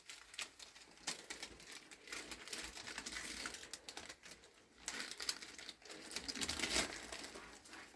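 Irregular clicking and rustling, like objects being handled close by, with no clear rhythm.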